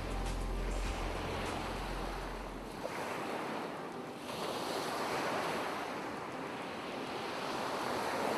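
Ocean surf washing ashore, a rushing sound that swells and recedes in waves. A low hum underneath stops about three seconds in.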